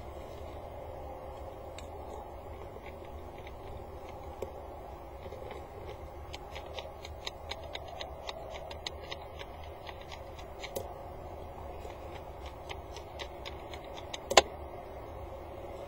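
Pebbles clicking on the gravel floor of a peregrine falcon's nest box as the falcon shifts on them, a scatter of small clicks over a steady low hum, with one sharp louder knock near the end.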